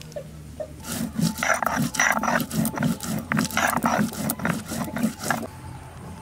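Stone muller rubbed back and forth on a flat grinding stone (sil-batta), crushing cumin seeds: a rhythmic rasping scrape, about four strokes a second, starting about a second in and stopping about five and a half seconds in.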